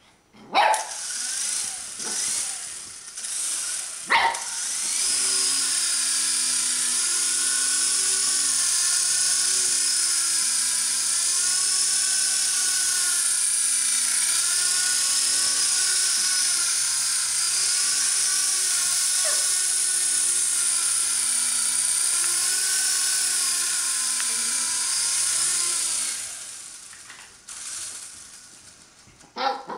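Small RC toy helicopter's electric rotor motor whining steadily for about twenty seconds, its pitch wavering up and down as the throttle changes, then winding down. Near the start, brief spurts of the motor and a couple of short sharp barks from a Shih Tzu puppy.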